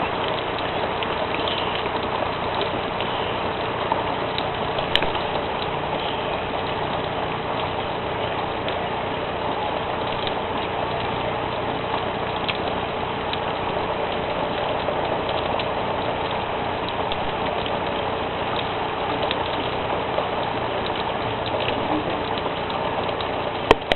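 Steady rain from a thunderstorm, with a steady hum underneath and scattered light ticks.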